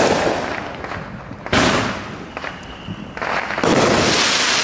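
Aerial fireworks bursting overhead: three loud bangs about a second and a half to two seconds apart, each trailing off in a long rumbling, crackling decay.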